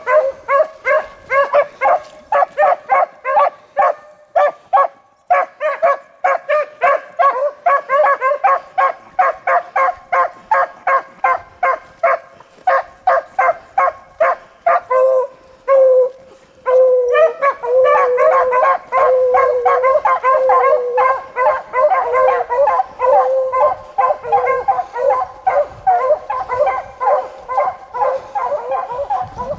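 A pack of beagles baying as they run a rabbit's track, with quick, repeated bays from several dogs overlapping. The chorus breaks off briefly a little past halfway, then resumes fuller and more continuous.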